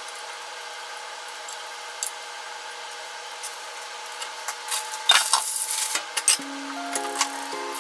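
Hot oil sizzling faintly in a small rectangular pan on a gas hob, with light clicks of chopsticks on the pan. About five seconds in, pans clatter as the small pan is lifted off the burner and a frying pan is brought over.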